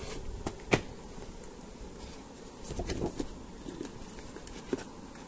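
Paper and cardboard being handled: a glossy card booklet slid and turned over the packaging. There are a few sharp taps and clicks, the sharpest about three-quarters of a second in and a small cluster around three seconds.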